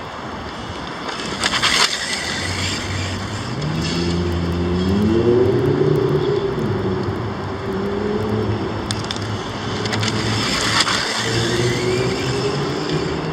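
HPI RS4 Sport 3 Flux electric RC touring car driving on rough asphalt: two quick rushes of tyre and motor noise as it passes close, about a second and a half in and again near eleven seconds, with a droning tone rising in pitch between them.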